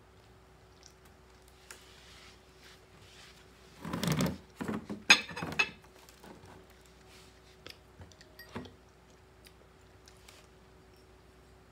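Crispy fried dried fish being broken and crunched while eating: a burst of crunching about four seconds in, then a quick run of sharp crackles, the loudest part, with a few small crackles later. An electric fan hums steadily underneath.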